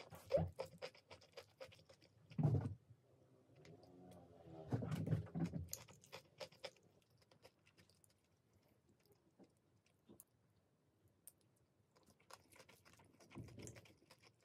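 A metal spoon clicking and scraping against a ceramic bowl of fried rice, with close chewing in between.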